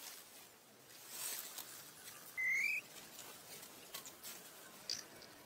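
Dry leaf litter rustling and crackling in scattered short ticks under a macaque's hands and feet, with one short, high, slightly rising call about two and a half seconds in, the loudest sound.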